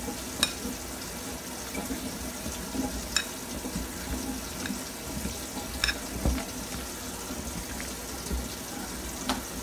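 Thick potato and water chestnut flour pakora batter being mixed by hand in a bowl: steady wet squishing, with four short clicks against the bowl.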